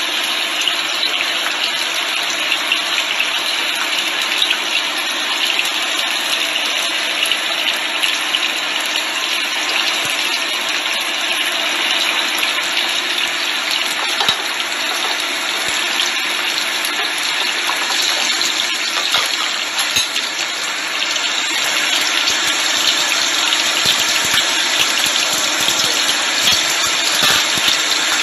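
Garlic cloves, chili and ginger slices frying in hot sesame oil in a pan, a steady sizzle that grows a little louder about three-quarters of the way through.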